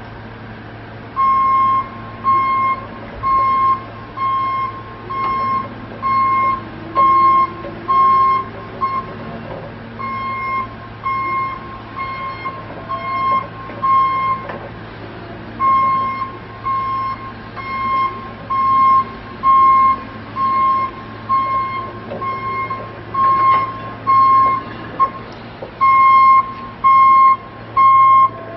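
Travel alarm of a Toyota 6BWS20 electric walkie stacker beeping about once a second as the machine is driven, with a few short breaks, over a steady low hum.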